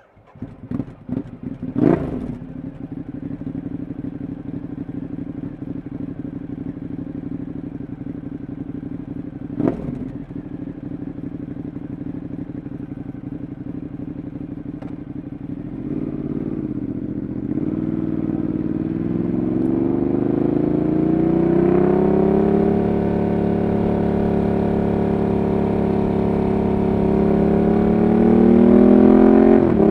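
Ducati Monster 1200 R's L-twin engine with an SC Project exhaust being started: a couple of seconds of cranking, then it catches and settles into a steady idle, with a single sharp knock about ten seconds in. From about sixteen seconds in the bike pulls away, the engine note rising and getting louder as it accelerates.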